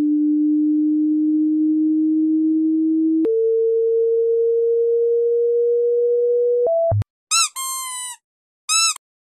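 A steady pure test tone played to a dog, stepping up in pitch twice and stopping about seven seconds in. A small dog, a Pomeranian, then answers with two short high whines.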